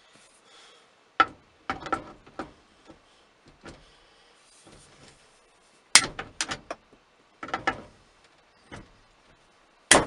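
Irregular clicks and knocks of the 1983 Jeep Wagoneer's steering wheel being handled and turned on its column hub. The sharpest knocks come about six seconds in and again at the end.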